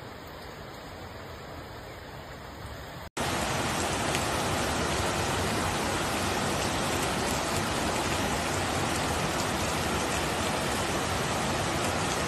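Steady rushing of floodwater and rain. About three seconds in it cuts out for an instant and comes back much louder: a fast, muddy flood torrent rushing down a street between houses.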